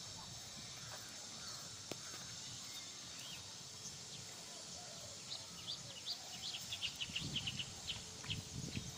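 Small birds chirping, a quick run of short rising chirps starting about halfway through, over a steady outdoor hiss.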